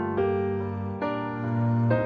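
Background music: a slow, soft keyboard melody with a piano sound, with a new held note starting roughly every second.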